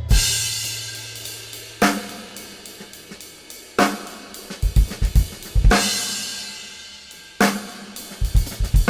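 Drum kit played in a free, improvised way: a loud cymbal crash with a drum hit about every two seconds, each left to ring out, with light hi-hat taps and bursts of quick low drum strokes between them.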